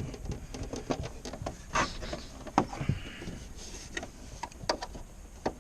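Irregular light clicks and taps of hand tools and fasteners against plastic dashboard trim as the fasteners are taken out one by one.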